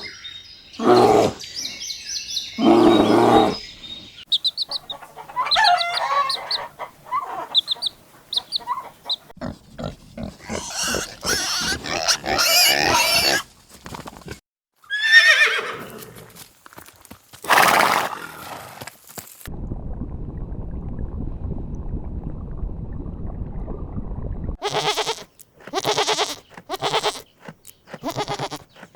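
A string of different farm animal calls, one after another, with about five seconds of low, steady rumbling noise in the second half and a run of short, evenly spaced calls near the end.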